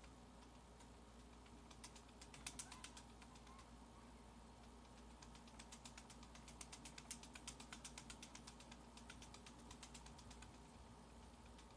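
Faint, rapid clicking of a computer keyboard being typed on: a short burst about two seconds in, then a longer run of quick, irregular keystrokes from about five and a half to ten seconds.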